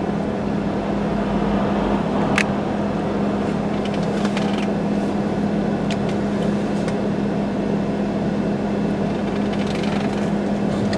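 A vehicle engine idling with a steady low hum and even background noise, with a few faint clicks.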